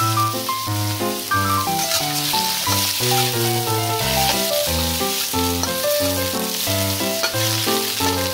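Shrimp sizzling in hot oil in a stainless steel wok as they are stir-fried with a metal spatula, over background music with a steady run of notes.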